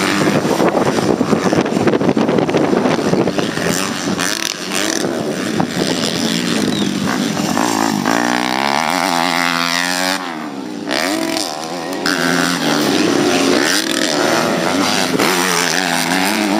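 Small-bore motocross dirt bikes racing, engines revving hard. The pitch rises and falls again and again as the bikes shift and accelerate.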